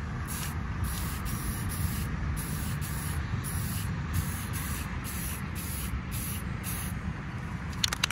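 Aerosol spray paint can hissing as it lays down paint in a run of short passes with brief breaks between them.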